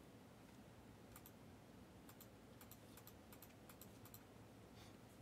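Near silence with faint, irregular light clicks in small clusters, a few every second.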